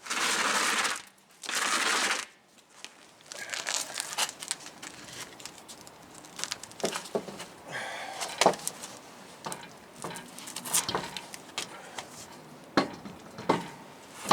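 Two short, loud rustling, crinkling rushes, then scattered clicks, clinks and knocks of metal parts and tools being handled while a truck wheel is put back on.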